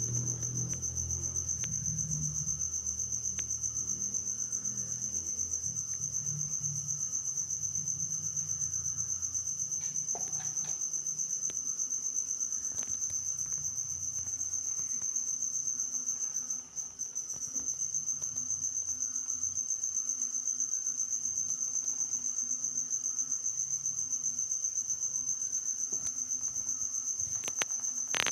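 A cricket trilling steadily on one high unbroken note, which breaks off briefly about midway, with a few faint clicks.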